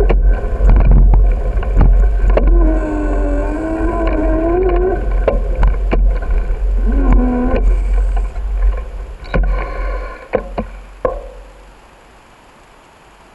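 Bicycle ride heard from a bike-mounted camera: heavy wind rumble on the microphone with knocks and rattles over the cracked pavement, and a few wavering squeaky tones along the way. About a second and a half before the end it drops off to a quiet hiss as the bike comes to a stop.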